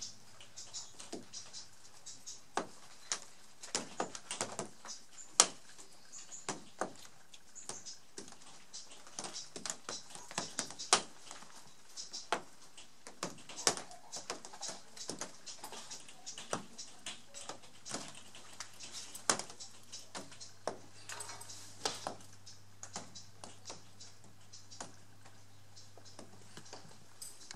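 Irregular sharp clicks and taps, a few a second and of varying strength. A low steady hum joins them about two-thirds of the way through.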